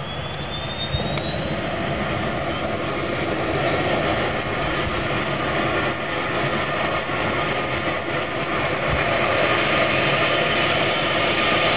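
Eurocopter EC135 helicopter's turbine engines and rotor running on the ground. A high turbine whine rises in pitch over the first few seconds as the engines spool up, over a steady rushing noise from the engines and rotor.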